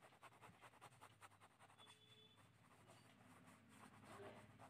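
Faint, quick scratching of a red pen on paper, drawn in rapid repeated hatching strokes.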